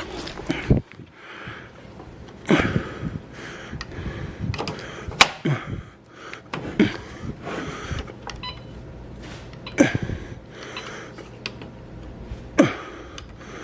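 Plastic clunks and knocks from handling plugs, cables and the UPS while connecting it, about six louder knocks among smaller rattles, over a steady low hum.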